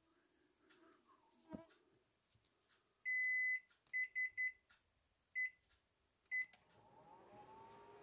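Microwave oven control panel beeping: one longer beep, then five short ones at the same high pitch as it is set. About a second later the oven starts, and its hum rises in pitch and settles to a steady tone. A soft knock comes earlier, about a second and a half in.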